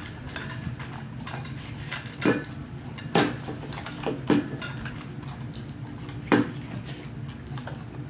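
A large dog wolfing food from a stainless steel bowl: irregular clinks and clanks as its muzzle and the food knock against the metal, loudest about 2, 3, 4 and 6 seconds in. It is eating very fast, in big mouthfuls.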